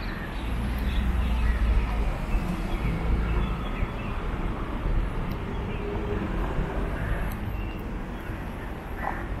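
Outdoor street ambience: a steady low rumble of traffic, heaviest in the first few seconds, with birds calling here and there.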